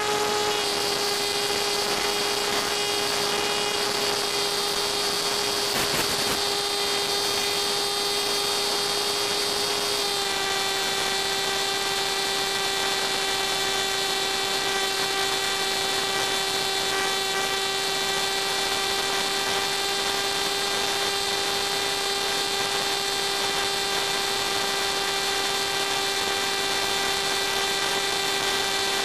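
A Funjet's HET 2W25 brushless motor and 6x4 APC propeller running steadily in flight: a high-pitched whine with overtones. The pitch drops slightly about ten seconds in.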